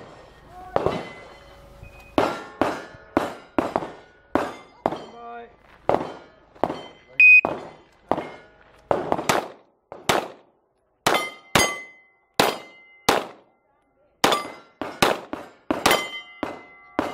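Pistol shots one after another, many followed by the short ring of a struck steel target plate. A single loud electronic beep about seven seconds in, typical of a shot timer's start signal.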